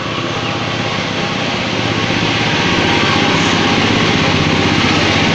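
A small engine running close by, a steady fast-pulsing drone that grows louder over the first three seconds and then holds.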